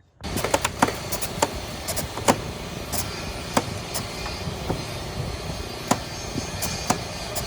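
A steady running noise like a motor, with many sharp knocks and clicks at irregular intervals on top.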